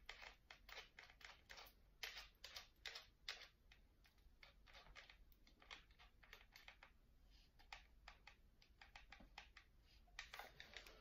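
Faint, irregular light clicks as the chuck of a cordless drill is twisted and handled by hand to swap in a drill bit.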